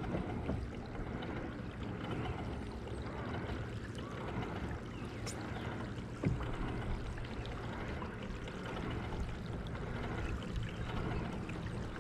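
Lake water lapping and splashing against a kayak's hull, with wind rumbling on the microphone. There is a single light knock about halfway through.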